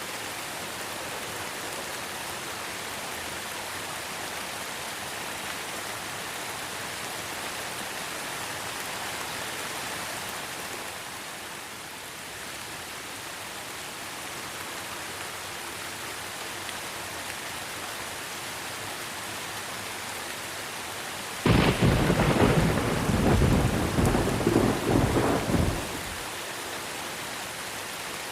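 Steady rain hiss, with a sudden loud crack of thunder about three quarters of the way through that crackles and rumbles for about four seconds, then falls back to the rain.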